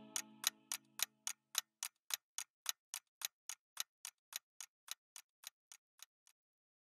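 Clock ticking at an even pace, about three and a half ticks a second, fading out and stopping about six seconds in. The last of a held musical chord dies away under the first ticks.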